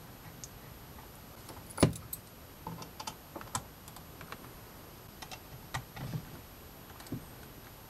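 Scattered small plastic clicks and taps as a camcorder is handled and its flip-out LCD screen swung open, with one louder, sharper click about two seconds in.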